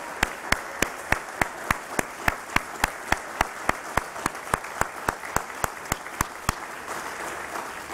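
A crowd applauding, with one clapper's sharp claps standing out in a steady beat of about three a second; the close claps stop about six and a half seconds in while the general applause carries on more softly.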